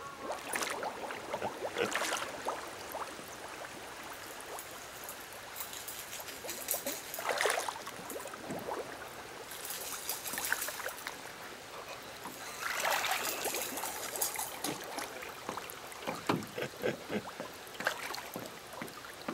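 Water sloshing and splashing around a person's legs as he wades through a shallow, muddy river bottom, in irregular bursts a few seconds apart over a steady background hiss.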